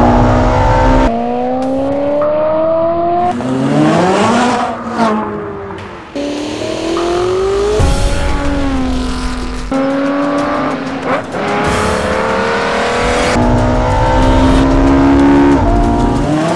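Ferrari 458 Italia's V8 accelerating hard through the gears: the engine note climbs in pitch, drops back at each upshift and climbs again. Twice it sweeps past, about four to five seconds in and again around eleven seconds.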